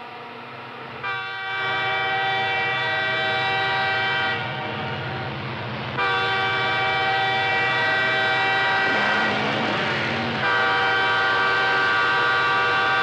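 A train horn sounding over a CB radio channel, heard through the receiver: long held blasts of a steady multi-note chord. The first begins about a second in and stops after about three seconds; a second starts around six seconds in, and a third runs on near the end.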